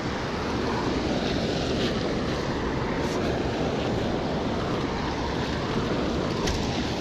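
Steady rush of water spilling over a low concrete dam, with a few faint ticks.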